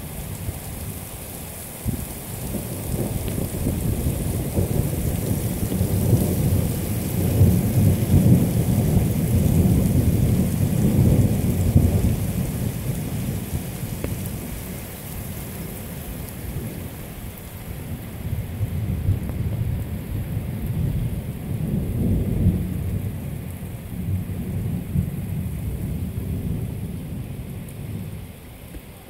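A long roll of thunder that swells twice: it builds to its loudest about a third of the way in, eases, then swells again past the middle before dying away. Steady rain hisses under it throughout.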